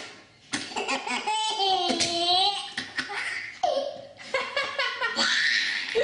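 A baby laughing heartily in several bursts, with a long high squealing laugh about two seconds in.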